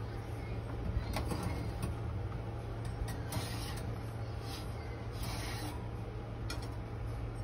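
Several short rubbing and scraping noises from handling at a countertop steam oven, a few seconds apart, over a steady low hum.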